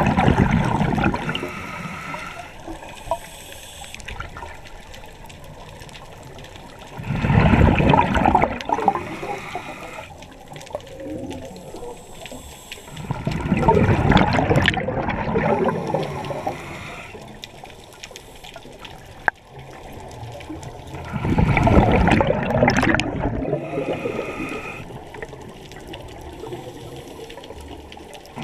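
Scuba diver breathing through a regulator underwater: a loud gurgling rush of exhaled bubbles comes about every seven seconds, three times, with quieter hissing inhalations between.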